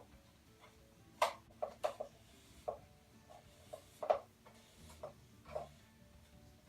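Ring light stand being handled: a string of about ten sharp clicks and knocks of its parts, the loudest just over a second in and about four seconds in.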